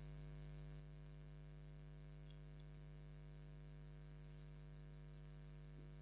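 Near silence: a steady electrical mains hum from the microphone's sound system, with a few faint clicks. A thin, high, steady whine joins about five seconds in.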